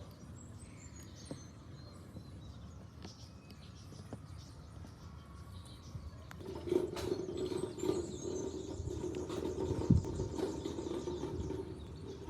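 Cordless drill motor starting about halfway through and running at a steady pitch, with a high whine above the hum and one thump near the end. Faint bird chirps come before it.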